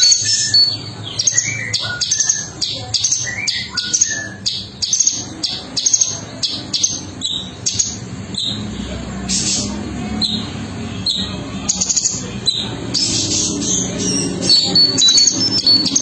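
Male orange-bellied leafbird singing a continuous, rapid, varied song of short high chirps and twitters.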